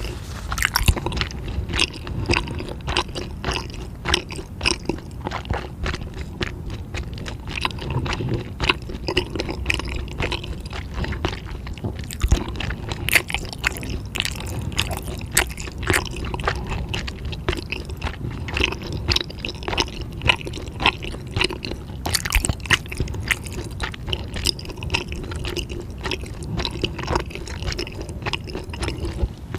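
Close-miked eating sounds: a person chewing, with many irregular small clicks, smacks and crunches.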